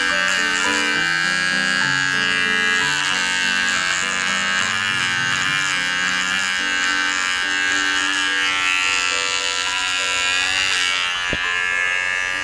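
GSE GS-007 battery-powered mini shaver buzzing as it is drawn over chin stubble, under background music with a changing melody. The buzz stops near the end.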